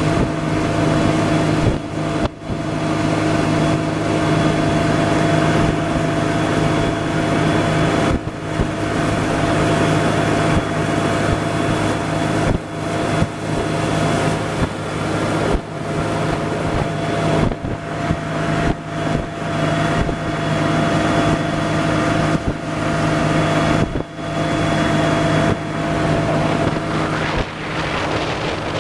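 A small motorboat's engine running at a steady pitch as the boat cruises, with wind rushing over the microphone.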